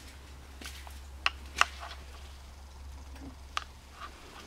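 A few short, sharp clicks and light knocks over a low steady hum, the loudest two about a second and a second and a half in, another near the end.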